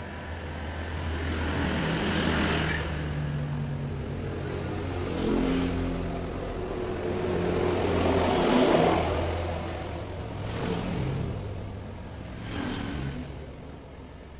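Motor vehicles passing on the road one after another: engine noise swells up and fades about five times over a steady low hum, loudest about nine seconds in.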